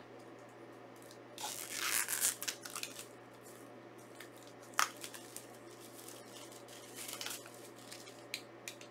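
Plastic shrink wrap being torn and peeled off a Blu-ray steelbook case, in crinkly bursts about a second and a half in and again near seven seconds, with a sharp click around five seconds and a couple of light taps near the end.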